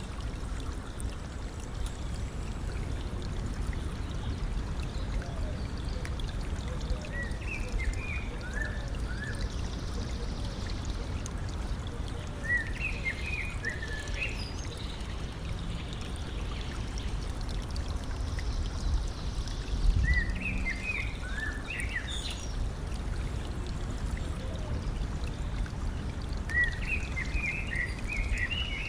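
Stream flowing steadily with a constant rushing trickle. A songbird sings short bursts of quick chirping notes four times over it.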